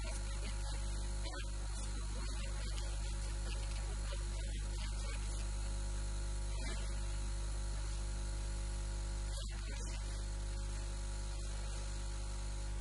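Steady electrical hum with a stack of even overtones and a light hiss, holding one level throughout.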